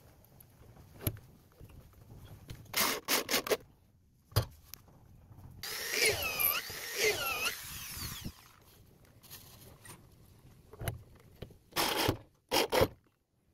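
A handheld electric drill/driver run in short trigger bursts, driving screws up through a palm-wood apron rail into the tabletop. A few short bursts come about 3 s in and twice near the end, with one longer run about 6 s in that carries a wavering squeal.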